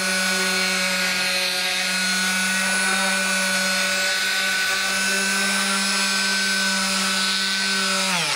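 Electric palm sander with coarse 40-grit paper running steadily against weathered wood, a hum with a gritty scratch over it, stripping the grey surface back to fresh timber. Near the end it is switched off and winds down, its pitch falling.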